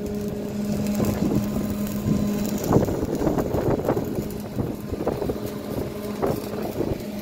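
Stick-welding arc from a Yamatec ARC400 welder crackling irregularly as the electrode burns, with wind buffeting the microphone. A steady low hum runs beneath, dropping out about two and a half seconds in and returning later.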